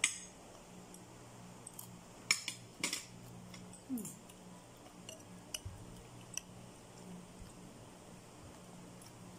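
Cutlery clinking against a plate during a meal: a sharp clink at the start, a few more about two to three seconds in, then lighter scattered ticks.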